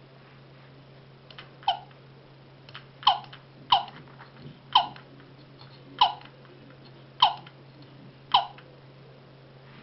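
The sound mechanism of an antique terracotta doll-in-a-rocking-chair toy squeaking seven times, mostly about a second apart, each squeak short and falling in pitch.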